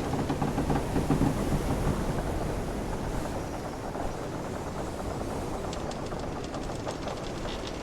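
Wooden sailing ship's timbers creaking over a steady wash of ocean waves. A low drawn-out creak fills the first second or so, and a run of quick dry clicks from the wood starts near the end.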